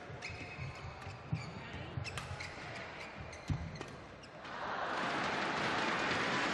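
Badminton rally: sharp shuttlecock hits off rackets and shoes squeaking on the court mat, then, about four seconds in, the crowd breaks into steady cheering and applause as the point ends.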